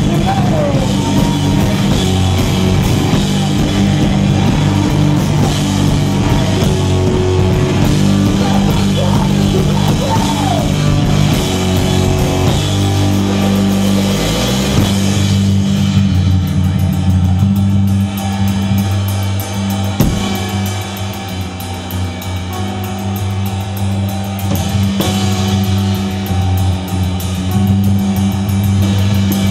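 Rock music with drums and guitar. About halfway through, the drums drop back and the guitars carry on a little more quietly before it builds again.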